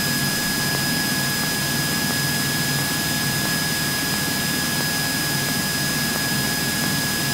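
Cabin noise of a Cessna 172N Skyhawk in flight: its four-cylinder Lycoming engine and the airflow make a steady, unchanging drone with hiss, and a thin constant high whine sits over it.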